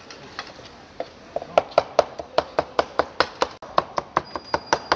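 Large kitchen knife chopping cooked lamb on a wooden board, rapid sharp strokes at about five a second starting about a second in.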